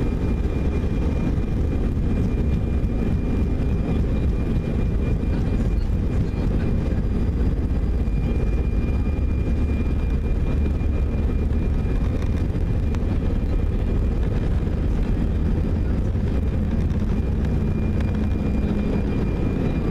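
Airbus A320 jet engines and rolling rumble heard from inside the cabin over the wing during the fast ground roll along the runway. A steady, loud low rumble with a thin, constant high whine above it.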